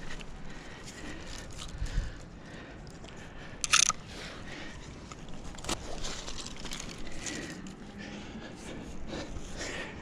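A climber's clothing, shoes and hands scraping and knocking against a tree trunk while climbing it, with twigs crackling. A dull thump about two seconds in, and a brief loud scrape just before four seconds in.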